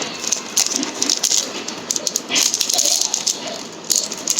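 Gift packaging being handled and unwrapped: irregular crinkling and rattling, with a denser, louder stretch of crinkling about halfway through.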